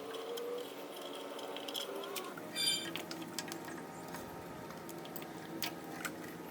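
Faint clicks and light handling noise of hands working on wiring and tape, with one brief squeaky rasp about two and a half seconds in.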